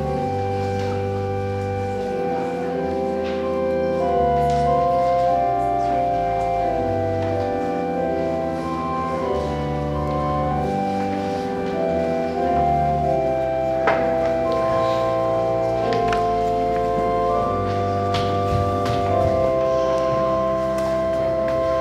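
Church organ playing slow, held chords over deep bass notes, the chord changing every second or two. A single faint knock comes about two-thirds of the way through.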